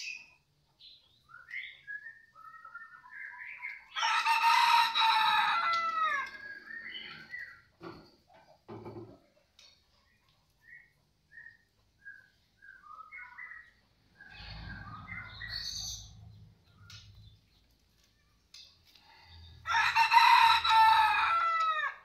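A rooster crows twice, each crow about two seconds long and falling in pitch at its end, about four seconds in and again near the end. Between the crows a small songbird, the caged white-rumped shama, gives short scattered chirps.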